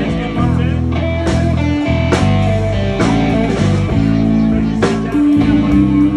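Live blues-rock band playing: an electric guitar lead with held and bent notes over bass and drums.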